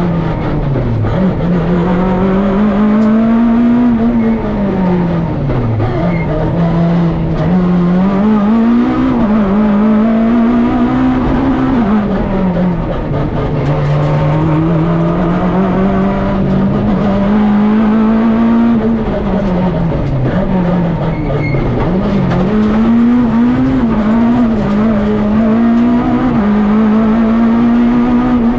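Peugeot 106 rally car's engine heard from inside the cockpit under hard driving: the pitch climbs under acceleration and drops sharply several times on lifts and gear changes, then climbs again. Tyre and road noise run underneath.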